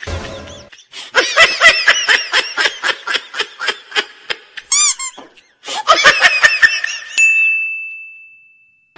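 Cartoon comedy sound effects: a squeaky, sped-up laughter effect in rapid stuttering bursts, then a single high bell-like ding about seven seconds in that rings on and fades away.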